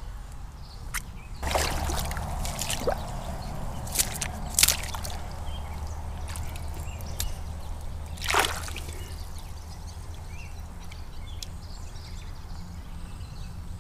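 Water sloshing and splashing as a common carp is held in shallow water at the bank and released by hand, with several sharp splashes in the first half and quieter sloshing after.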